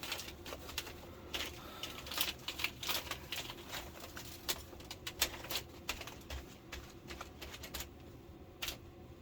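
Irregular small clicks and scratchy taps from hands wiping and picking at a melted spot in an LCD TV's backlight assembly.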